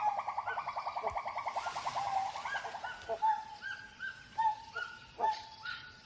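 Animal calls in forest: a fast trill of pulsed notes, about ten a second, that fades out about three seconds in, followed by a series of short rising notes repeated at fairly even spacing.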